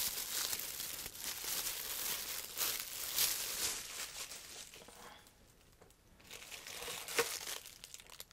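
Thin plastic bag wrapped around a microphone boom arm crinkling as it is handled: dense crinkling for about the first four seconds, a quieter lull, then more crinkling with a sharp click a little past seven seconds.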